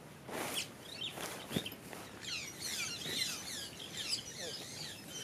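Birds chirping: many short, quick calls that fall in pitch, overlapping and growing busier from about two seconds in.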